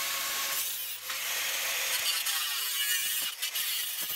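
Angle grinder cutting galvanised steel cable tray, the disc grinding through the thin perforated sheet with a steady high-pitched hiss. A few short knocks come near the end.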